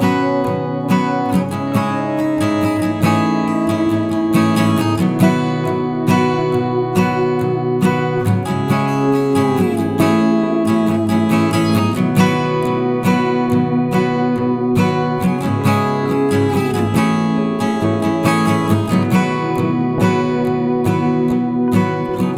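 Background music of an acoustic guitar strummed in a steady rhythm, with notes now and then sliding in pitch.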